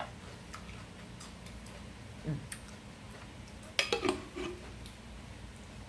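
Soft wet clicks of chewing, with a muffled thump partway through. Just before four seconds in comes a quick cluster of sharp clicks and knocks as a glass pickle jar is handled by its screw lid.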